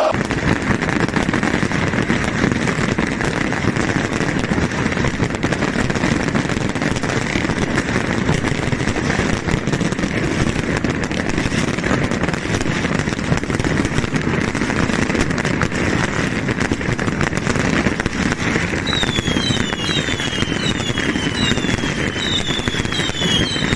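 Massed fireworks and firecrackers going off in a continuous crackle of rapid bangs. About three-quarters of the way in, a run of short high whistles, each falling in pitch, joins the crackling.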